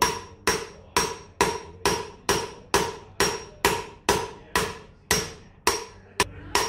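A hammer strikes a bearing driver steadily, about two blows a second, each with a short metallic ring. The blows drive a wheel bearing into a Suzuki DR650's rear hub with no heating of the hub or freezing of the bearing.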